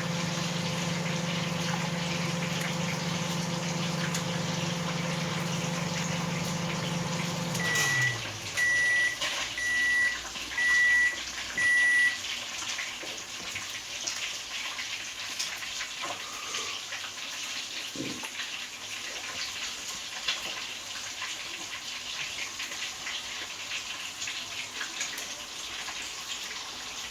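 Tilapia frying in hot oil, a steady sizzle throughout. Over it an electric kitchen appliance hums steadily, winds down with falling pitch about eight seconds in, then gives five evenly spaced beeps, about one a second.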